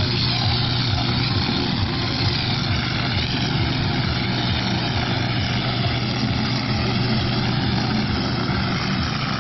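Portable fire-pump engine running steadily at high revs with a fast buzzing pulse, under load as it pumps water through the hose lines to two nozzles spraying.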